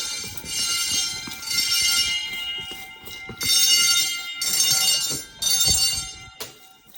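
Wheelock 10-inch fire alarm bells ringing continuously during a fire drill: a dense metallic clang of many high tones whose loudness swells and dips about once a second.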